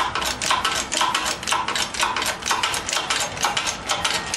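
Hydraulic shop press being worked to push a U-joint cross and press a bearing cap out of a driveshaft yoke: rapid metallic clicking with a heavier clack about twice a second, stopping suddenly at the end.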